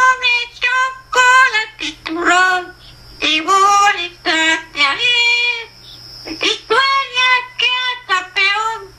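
Blue-fronted amazon parrot singing in a child-like human voice: a string of short pitched phrases, one after another with brief gaps.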